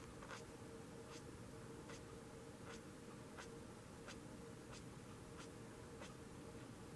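Ohuhu marker tip rubbing on paper in short, even shading strokes, about nine of them, one every second or less. A faint steady hum lies underneath.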